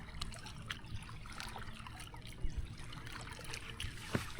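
Water lightly trickling and lapping, with scattered small ticks and splashes, and a sudden louder sound right at the end.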